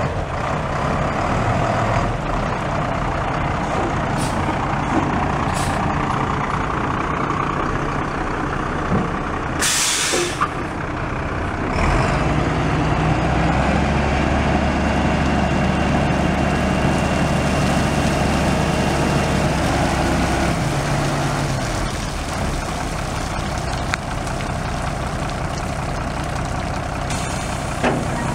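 The DT466 inline-six turbo diesel of a 1993 International 4900 dump truck running at idle. About ten seconds in there is a short, loud hiss of air from the truck's air brake system. From about twelve seconds the engine runs louder and deeper for some eight seconds, then settles back to idle.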